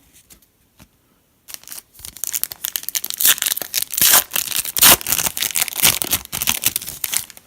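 A foil trading-card pack wrapper being torn open and crinkled by hand: dense crackling and tearing that starts about a second and a half in and goes on for several seconds.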